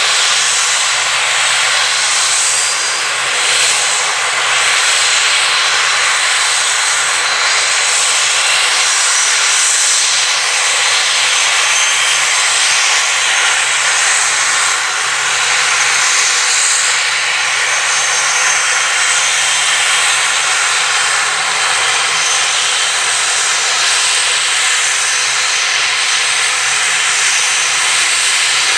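Loud, steady turbine aircraft engine noise: an even rushing roar with several high, steady whining tones, holding level throughout.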